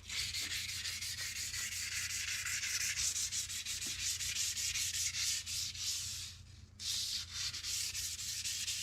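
Sandpaper rubbed back and forth in rapid strokes on stainless steel trim to take out scratches, with a short pause about two-thirds of the way through.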